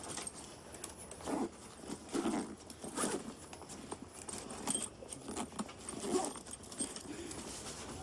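A fabric backpack being handled and packed: rustling cloth with clinks of its zip and buckles, in irregular bursts a second or so apart.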